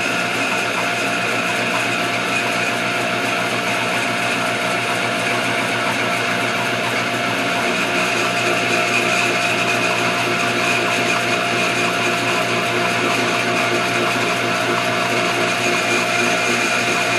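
Homemade bandsaw running steadily, its motor driving the blade through a 15-inch sprocket, with a constant mechanical hum and whine.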